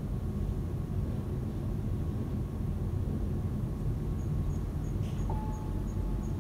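Low, steady rumbling drone of an electronic ambient soundtrack. About four seconds in, faint high ticks start at about three a second, and a single held tone comes in near the end.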